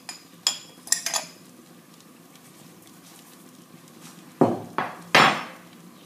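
A spoon clinking and knocking against a stainless-steel soup pot during stirring: a few light ringing clinks in the first second, then three sharper knocks near the end.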